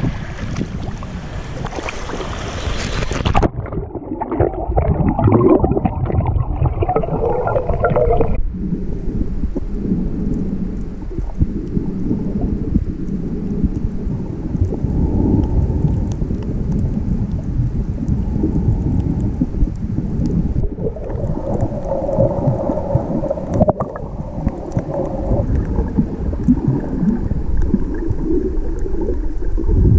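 Small waves washing at the water's edge, heard at the surface. About three seconds in, the sound goes muffled as the camera goes under water, leaving a dull, steady underwater rumble with faint crackling.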